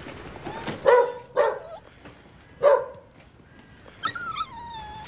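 A dog barks three short times in the first three seconds, then gives a thin whine that falls in pitch near the end.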